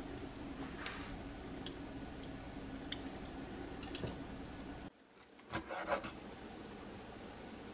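A large kitchen knife chopping through pressure-cooked pork intestine onto a wooden cutting board: a quick run of knocks just under two seconds before the end. Before that come a steady low hum and a few light clicks of metal tongs laying the intestine on the board.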